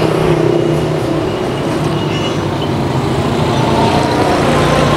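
Road traffic: motor vehicles running past with a steady engine rumble.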